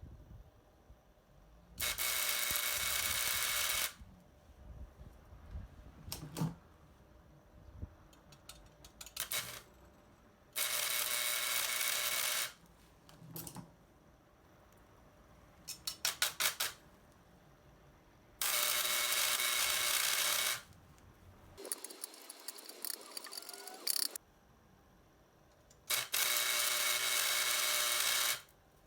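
Four short runs of stick welding, about two seconds each: a Suzukid Home Arc Navi Plus 100 V AC arc welder burning a 1.4 mm low-voltage rod to join an M8 flange nut to 2 mm steel plate. Light clicks and taps come between the arcs.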